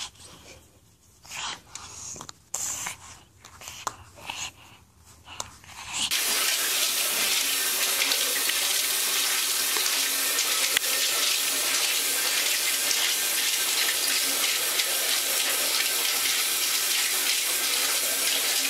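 A few short, scattered noises, then the steady hiss of a bidet's upward water jet running into its ceramic bowl, starting abruptly about six seconds in.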